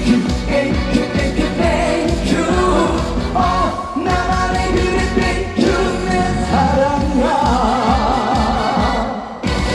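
Live trot song: upbeat band backing with a singing voice carrying a wavering melody, dipping briefly just before the end.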